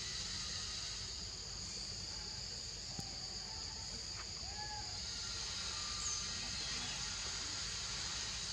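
Steady insect chorus in two high bands, with a few short calls near the middle and a single sharp click about three seconds in.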